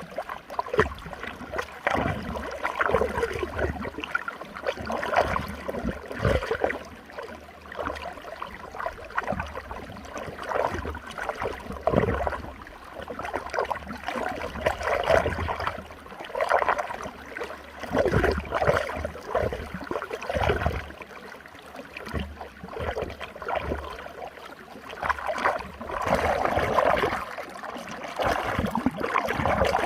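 Running water swirling in a whirlpool, churning in uneven surges.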